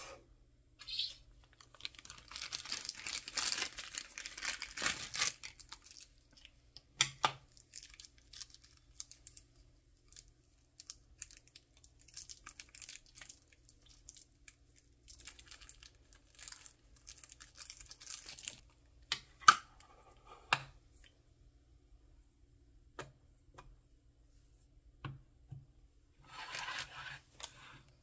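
Small plastic and vinyl toy figures being handled and set down on a tabletop: scattered light taps and clicks, one sharper knock about two-thirds of the way through, with three spells of rustling, crinkly handling noise.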